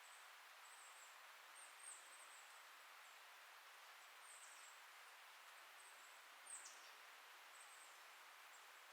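Faint, steady rustle of wind through forest leaves, with short, very high, thin chirps recurring every second or so. Two of the chirps, about two seconds in and near six and a half seconds, are louder and fall in pitch.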